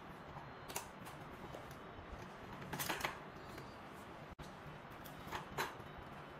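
A few clicks and rattles of an electric baby swing's metal-tube and plastic frame being folded by hand: one click about a second in, a short cluster around three seconds, and two more near the end.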